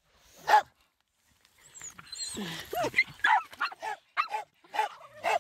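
Dogs barking and whining: a single bark about half a second in, a gliding whine around the middle, then a quick run of short yaps over the last two seconds.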